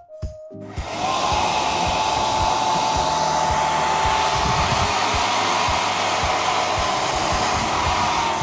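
Hand-held hair dryer switched on about a second in and blowing steadily with a thin whistle, its nozzle aimed into a terracotta pot to heat waterproof tape so the tape bonds.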